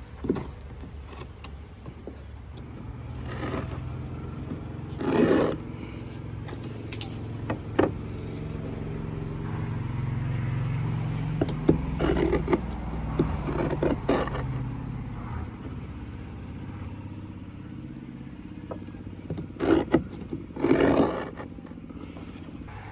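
A hand-held wooden stick scraping along the wooden planks of a boat hull in several short strokes, over a low engine hum that swells and fades around the middle.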